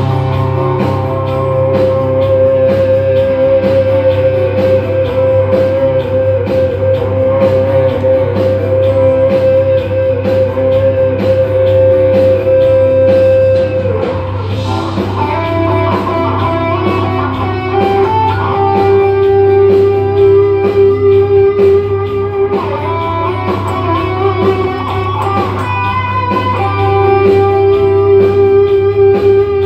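Guitar music: picked guitar over a steady low bass, with one long held note wavering slightly for the first half, then a melody moving between notes from about halfway.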